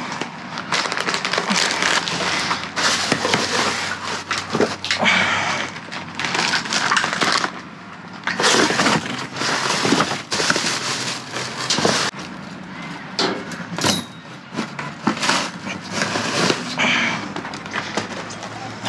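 Trash being rummaged through in a dumpster: items rustling, knocking and clattering in irregular bursts, with a few sharp knocks.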